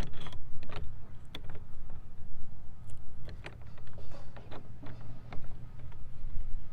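Scattered light clicks and knocks of metal hardware being worked by hand while a barrel bolt is fitted to a shed door, over a steady low rumble.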